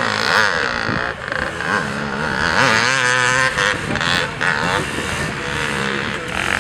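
Small ATV (quad bike) engine revving up and easing off over and over, its pitch rising and falling.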